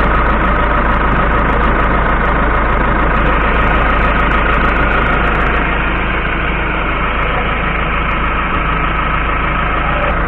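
Cummins ISBe diesel engine of a Ford F-100 idling steadily at around 800 rpm.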